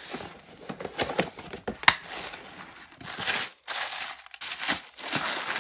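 A small cardboard box being opened and the tissue paper inside rustled and crinkled by hand, with one sharp snap about two seconds in.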